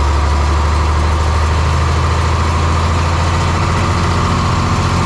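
Caterpillar D5B bulldozer's diesel engine running steadily.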